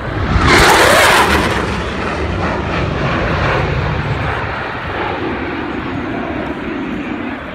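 F-16 fighter jet's engine during a fast low pass: a loud rush of jet noise that peaks about a second in, then a long rumble that eases off as the jet climbs away.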